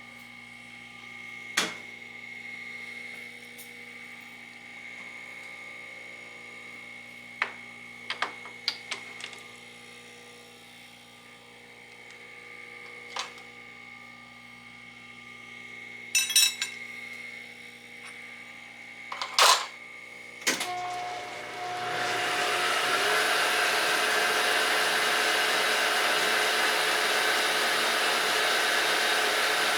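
Monarch 10EE metal lathe humming quietly while its controls and tooling are handled, with a number of sharp clicks and clunks. About twenty seconds in, the spindle is started and the lathe runs on loudly and steadily, ready to face the end of the bar.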